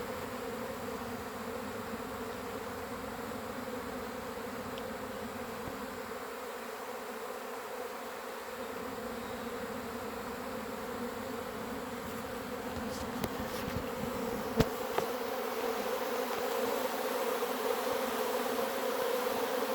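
Dense, steady buzzing of a honeybee colony pouring out of its hive and filling the air, which the beekeeper takes for a swarm rather than an orientation flight. The buzz grows a little louder toward the end, with a couple of sharp clicks around the middle.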